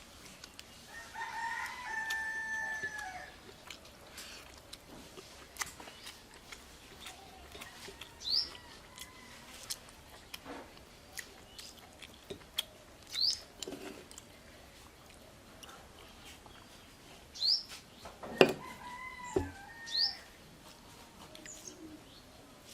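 A rooster crowing, once about a second in and again about three quarters of the way through, with a sharp knock at the start of the second crow. Short, high, rising chirps of a small bird come every few seconds, among scattered faint clicks.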